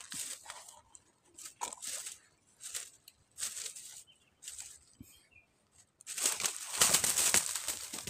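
A kingfisher flapping its wings on dry pine-needle litter, making short bursts of crackling rustle, with a longer, louder spell of flapping near the end.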